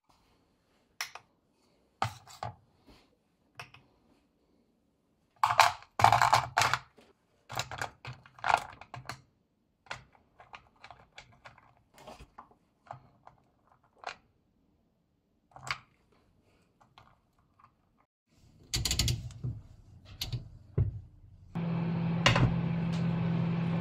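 Kitchen handling noises: scattered knocks and clicks as a plastic scoop of diced chicken is set and shuffled on a digital kitchen scale, with a louder cluster of knocks about six seconds in. Near the end a steady appliance hum starts and holds.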